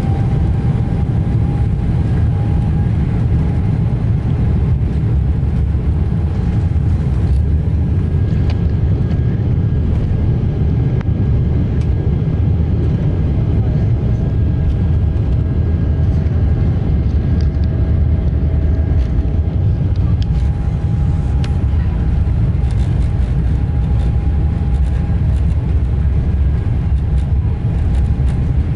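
Boeing 777-300ER's GE90 engines at takeoff thrust, heard from inside the cabin during the takeoff roll: a loud, steady low rumble with a thin engine whine that finishes rising right at the start and then holds steady as the aircraft accelerates down the runway.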